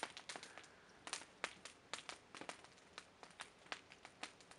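Near silence with faint, irregular clicks and crackles.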